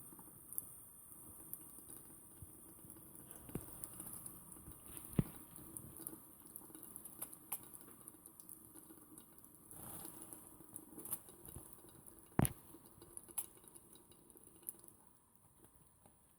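A bird bathing in water: faint, irregular splashing and pattering of drops, with a few sharper ticks.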